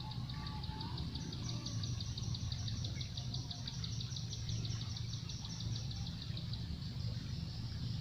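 An insect, cricket-like, keeps up a fast, evenly pulsed high trill over a steady low rumble of outdoor background noise. A few short bird whistles come in the first second.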